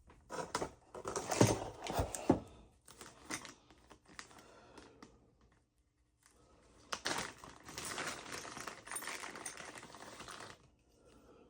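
Handling noise from unboxing a rifle: a rapid run of clicks, knocks and rustling in two stretches with a short lull between.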